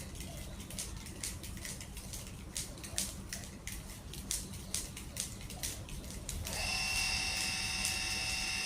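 Electric water pump motor switching on about six and a half seconds in and running with a steady whine. Before it, irregular crackling clicks over a low hum.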